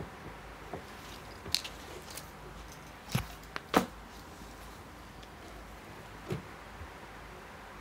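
Clothes hangers clicking and knocking together as tops on hangers are set down on a counter and the next pair is picked up and held up. The loudest clicks come around three to four seconds in, with fabric rustling between them.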